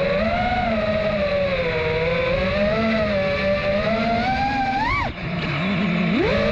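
Nazgul Evoque FPV quadcopter's motors whining, the pitch swelling and sagging with the throttle. About five seconds in the whine climbs sharply and then drops off as the throttle is chopped, and it rises again quickly near the end.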